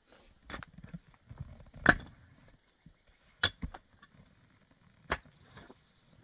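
A handful of sharp knocks or impacts at uneven intervals, the loudest about two seconds in, over a faint low rumble.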